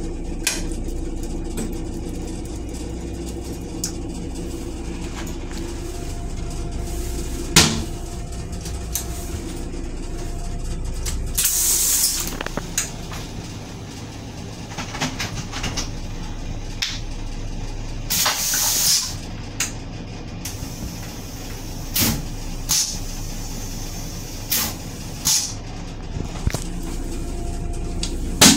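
Steady running rumble of a moving Metro-North Comet IV commuter rail coach, heard inside its restroom. Two loud hisses about 12 and 18 seconds in, and a scattering of sharp clicks and knocks from the stainless-steel fittings and toilet lid.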